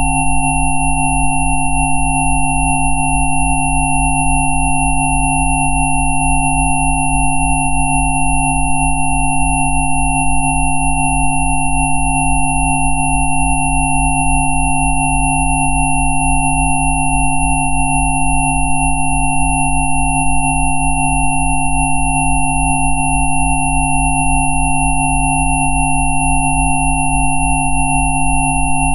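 Several steady electronic sine tones sounding together, a so-called Rife frequency mix, from a low hum up to a thin high whistle, unchanging throughout. The lowest tone pulses evenly, a few times a second.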